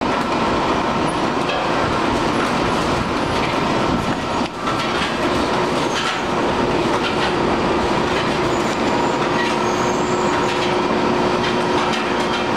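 Commercial tortilla machine running, with its masa hopper, press rollers and conveyor oven: a steady mechanical clatter with a constant whine.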